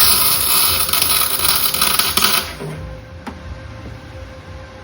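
MIG welder laying a single plug weld on 16- or 18-gauge sheet steel: a loud, crackling arc that strikes at once and cuts off after about two and a half seconds.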